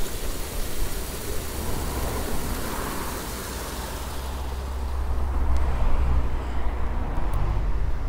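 Stream water splashing over a small concrete weir, fading after about halfway as the water falls behind. A low rumble swells up around then and eases off near the end.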